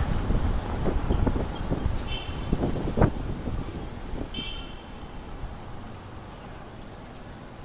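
Wind buffeting the microphone of a moving bicycle in city traffic, with rattling clicks and knocks and two short high chirps; the rumble fades over the second half.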